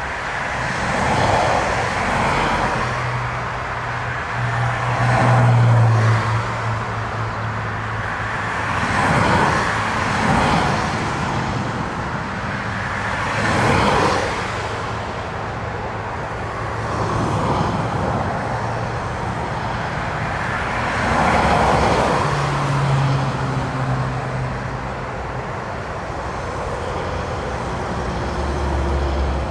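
Airbus A320 jet engines running as the airliner rolls along a wet runway, with a steady low drone under a rushing noise that swells and fades every few seconds like storm gusts.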